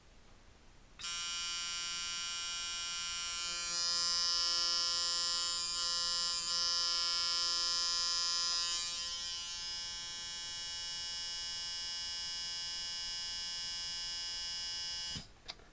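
Sharpz Micro Dial coil tattoo machine, tuned as a medium-stroke fast liner, running at 7 volts with a steady buzz. It starts about a second in and cuts off just before the end.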